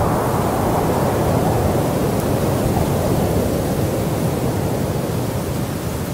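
A steady, even rushing noise like wind, with no engine note or other distinct events in it.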